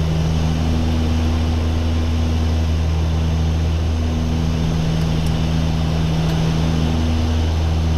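Steady drone of a de Havilland Canada Dash 8-100's twin Pratt & Whitney Canada PW120-series turboprops and propellers, heard inside the cockpit on final approach, with a deep steady hum under a constant rushing noise.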